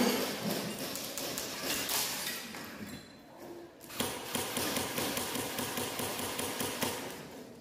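Airsoft rifles firing rapid full-auto bursts, a dense run of sharp clicks. The firing eases off about three seconds in and picks up again a second later.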